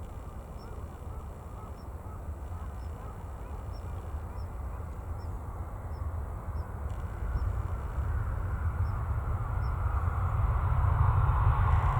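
Boeing 767-300ER airliner on approach, its jet engines heard as a low rumble that grows steadily louder as it comes closer, with a rushing sound building near the end.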